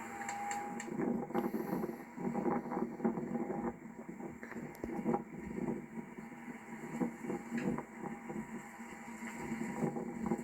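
Power convertible top of a 1995 Ford Mustang GT running as it folds down: a steady mechanical whir with a few small clicks.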